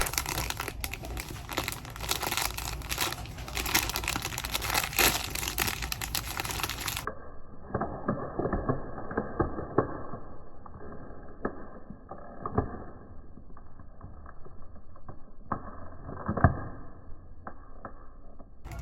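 Packaging being torn open and crinkled by hand, with irregular crackles and tearing, as a Sonny Angel blind box and its inner wrapper are opened. About seven seconds in the sound turns duller.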